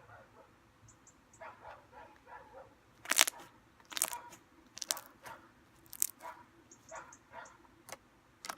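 Fluffy slime made with glue and shaving foam being squeezed and stretched by hand, giving irregular wet squelches and sharp crackling pops as air pockets burst, a handful of louder pops among softer squishes.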